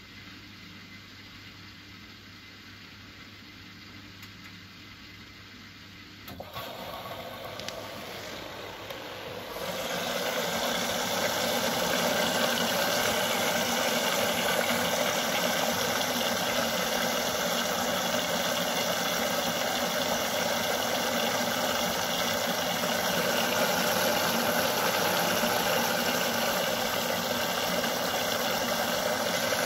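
Siemens Siwamat Perfecta SL washing machine running a delicates programme: a low, even hum for about six seconds, then its noise steps up suddenly, and again at about ten seconds to a much louder, steady running sound.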